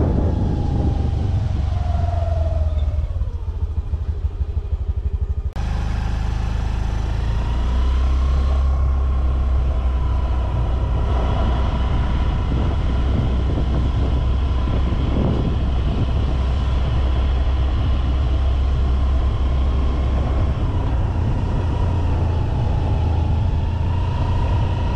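A road vehicle on the move: a steady low engine and road rumble with a steady whine above it, the sound changing abruptly about five seconds in.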